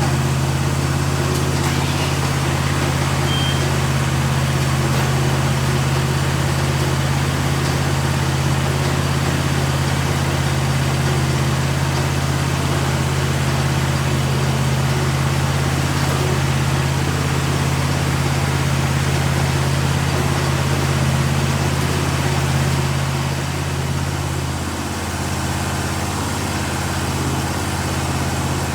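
A sawmill's engine running steadily in a low, even drone. It turns slightly quieter and less even about three-quarters of the way through.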